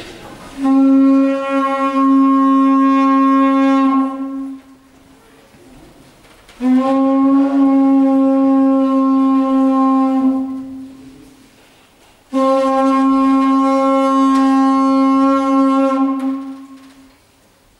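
A horn blown in three long held notes, all on the same pitch and each about four seconds long, with short pauses between them.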